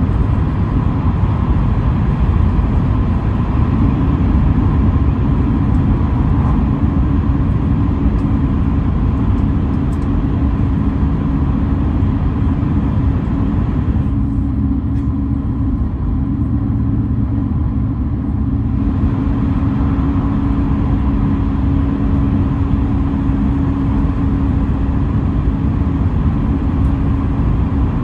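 Cabin running noise of a JR East E5 series Shinkansen (Mitsubishi IGBT traction equipment) travelling at speed: a steady low rumble of wheels and rushing air, with steady humming tones. About halfway through, the higher hiss dulls for a few seconds, then comes back.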